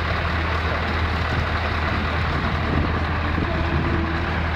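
Steady low drone of an idling diesel truck engine over a general outdoor noise haze.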